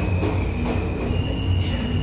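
R160A subway car with Alstom propulsion running, heard from inside the car: a steady low rumble with a thin high whine that steps up slightly in pitch about a second in.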